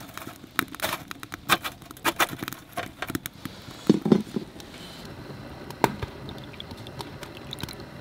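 Scattered light clicks and knocks of utensils and tableware being handled during a meal, with a duller knock about four seconds in. After that there is only a faint steady background hiss.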